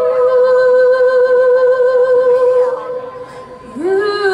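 A woman singing solo into a microphone, holding one long note with vibrato that fades out about three seconds in. Near the end she slides up into a new, lower note and holds it.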